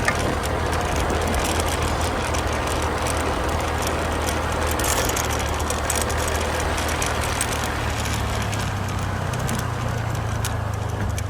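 Motor vehicle running steadily, a constant low engine hum with road noise.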